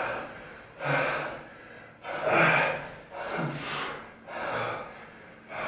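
A man breathing hard under heavy physical exertion: loud, rhythmic puffs of breath about once a second, some with a low grunt in them, while he carries and rotates another man's full body weight around his torso.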